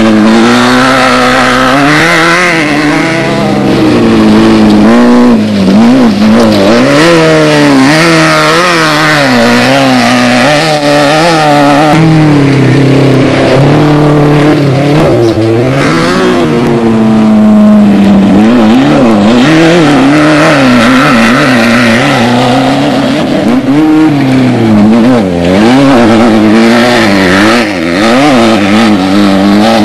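Off-road desert race vehicle's engine running hard, the revs rising and falling about once a second as the throttle is worked over rough ground.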